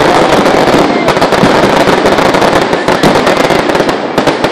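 Aerial fireworks display in a dense barrage: many sharp reports and crackling every second, with no gaps.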